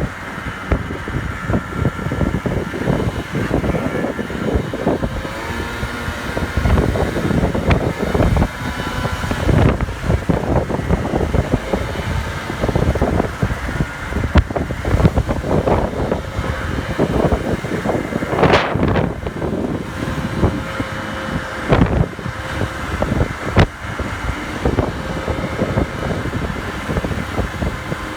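50cc moped scooter engine running under way, its faint wavering whine partly buried under heavy wind buffeting on the microphone.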